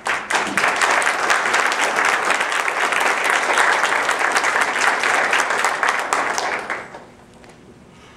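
An audience applauding with sustained clapping that dies away about seven seconds in.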